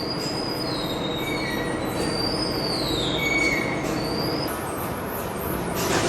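Metal-cutting machine running under a steady grinding noise, with a high squeal that slides up and then drops back in a cycle of about two seconds, and a short harsh burst near the end.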